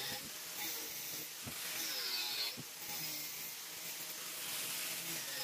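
Angle grinder with a cut-off disc cutting into a steel saw blade, a hissing grind with a whine that wavers as the disc bites. There are a couple of brief clicks in the middle.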